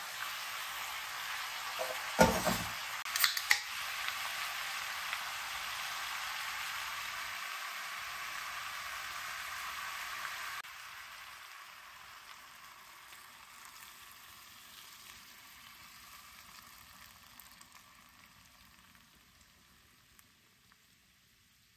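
Food frying and sizzling in a hot pan, with a few sharp clatters of a utensil against the pan about two to three and a half seconds in. The sizzle drops suddenly about ten seconds in, then dies away gradually.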